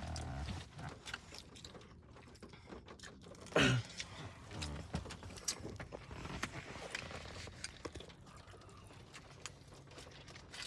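Close-up chewing and mouth noises of someone eating a chicken bake, with small wet clicks throughout. A short, loud sound falling in pitch comes about three and a half seconds in.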